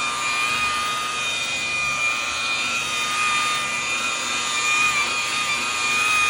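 Electric power tool motor running with a steady high whine, its pitch wavering slightly.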